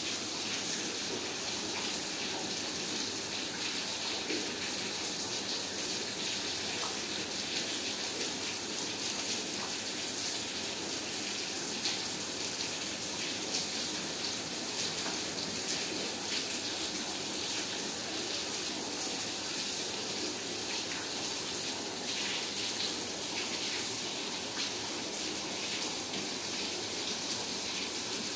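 Rainwater running and dripping: a steady rushing hiss scattered with many small drop ticks.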